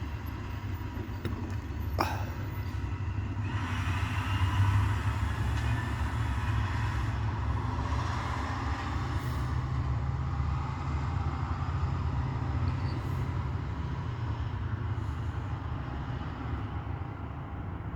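A school bus driving past: its engine and road noise swell about four seconds in and fade away over the next ten seconds, over a steady low rumble. A single sharp crack sounds about two seconds in.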